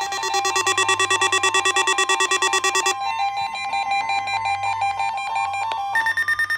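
Electronic emergency alert tones of a NOAA Weather Radio test: a rapid pulsing beep alternating between two pitches, joined about three seconds in by the steady high warning alarm tone. Near the end a second tone slowly rises in pitch.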